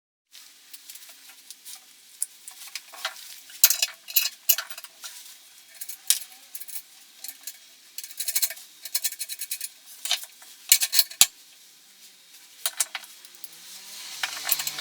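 Irregular rustling and crinkling with sharp clicks and clinks, typical of packaging being opened and parts being handled during unboxing.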